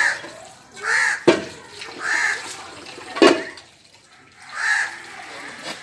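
A crow cawing four times, about one caw a second. Two sharp clanks of steel pots on concrete fall between the caws.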